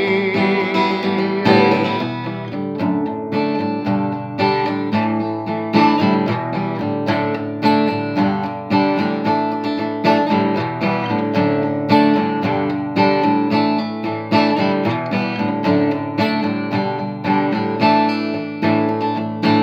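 Acoustic guitar strummed in a steady rhythm, an instrumental break. A sung note with vibrato fades out about a second and a half in.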